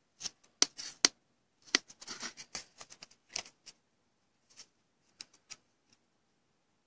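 A run of light, sharp clicks and taps from hands working at a desk. They come thick in the first few seconds, then a few scattered ones follow.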